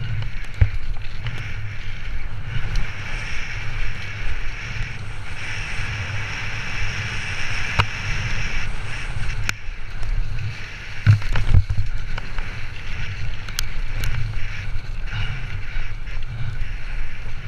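Mountain bike descending a rough dirt trail at speed, heard from a helmet-mounted camera: steady wind rumble on the microphone and tyre noise, with scattered knocks and clatters of the bike over bumps, two sharper ones about eleven seconds in.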